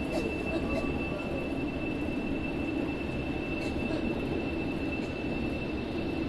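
Passenger coach of a train moving slowly out of a station, heard from inside: a steady low rumble with a thin, high steady tone held throughout.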